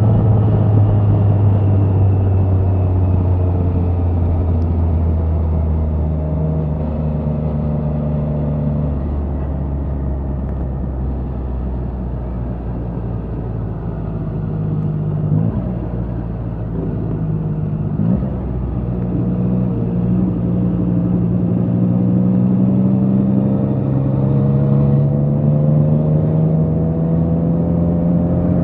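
Triumph Trident 660's inline three-cylinder engine through an aftermarket Spark exhaust, under way on the road. The engine note sinks slowly as the bike slows, two short blips come about halfway through, then the revs climb steadily and the sound grows louder as it accelerates again.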